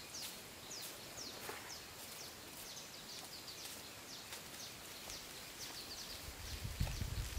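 Small birds chirping: many short, high chirps that each fall in pitch, repeated all through over a faint steady hiss. A low rumble comes in near the end.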